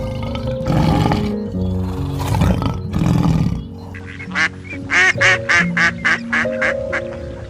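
A big cat, likely a lion, gives several rough roaring calls. About four seconds in these give way to a duck quacking in a quick series of short calls. Background music with held notes plays underneath throughout.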